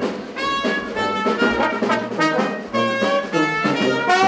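Brass band playing a lively tune in short, separate notes.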